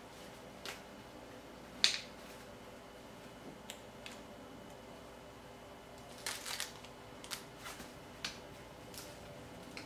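Small hard plastic clicks and snaps as the toy pieces of a Fisher-Price Sit-Me-Up floor seat are handled and clipped on. The clicks are scattered, with the loudest just under two seconds in and a quick cluster a little after six seconds.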